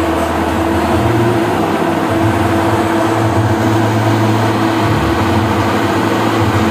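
Portable cylindrical electric blower fan running steadily: a continuous rush of air over a steady motor hum.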